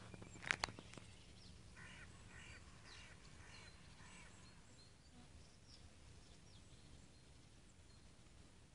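Faint birdsong: a run of about five short calls, about two a second, a couple of seconds in, with thin high chirps from small birds scattered throughout. Two sharp clicks about half a second in stand out as the loudest sounds.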